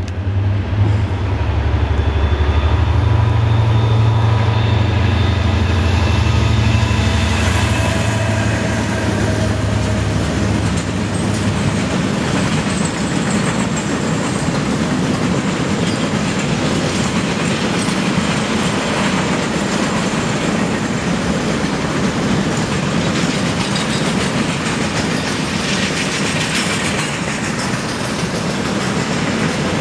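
Diesel locomotive of a freight train passing close by: a loud low engine drone with a steady whine over it, fading after about eight seconds. After that, the steady rumble and clickety-clack of loaded freight wagons rolling past on the rails.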